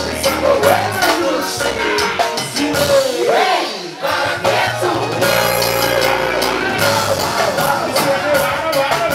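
Live music played loud over a club sound system, a vocalist singing into a microphone over a bass-heavy beat; the bass drops out for about a second around three to four seconds in, then comes back.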